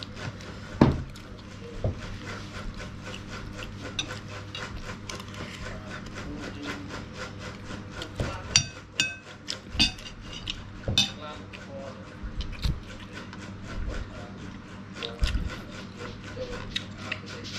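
Metal spoon scraping and clinking on a ceramic plate of noodles during a meal, in many small scrapes and taps with a sharper knock about a second in. A steady low hum runs underneath.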